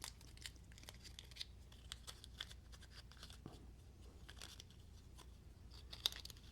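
Faint, scattered small clicks and rustles of the Skiff bearing kit being opened and the tiny pivot bearings handled, with one sharper click about six seconds in.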